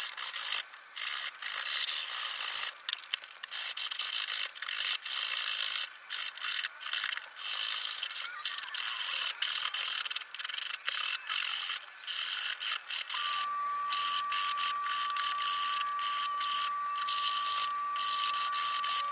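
Coarse wood rasp scraping a cherry hatchet handle in quick, repeated rasping strokes with short breaks between them. A steady high tone runs through the second half.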